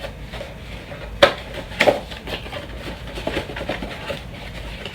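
A cardboard box and its packaging being opened and handled by hand: two sharp knocks about a second in, then lighter tapping and rustling.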